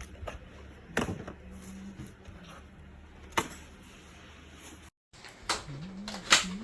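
A few scattered sharp clicks and knocks from PC parts, cables and packaging being handled, the loudest near the end. The sound cuts out completely for a moment about five seconds in.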